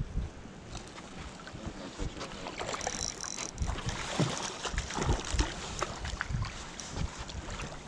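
Hooked salmon splashing at the water's surface in irregular bursts while being played on a spinning rod, over wind noise on the microphone.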